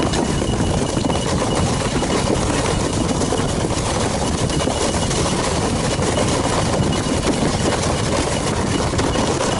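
Steady rushing, rumbling noise of a ski bike running over snow, with no breaks or distinct knocks.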